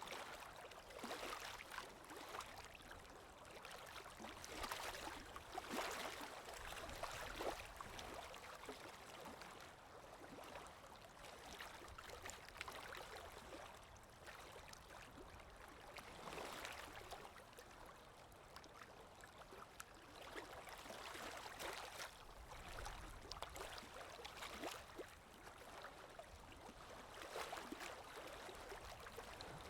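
Lake waves breaking and washing onto the shore, a steady splashing hiss that swells into surges every few seconds.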